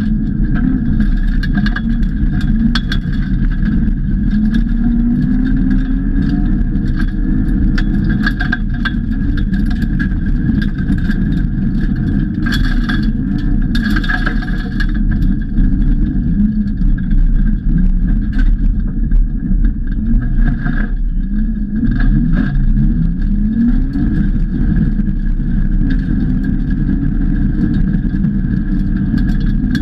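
A BMW E46 Compact rally car's engine, heard from inside the cabin, revving up and falling back again and again through gear changes while the car is driven hard on gravel. Sharp clatter comes through often, typical of stones thrown up against the car's underside.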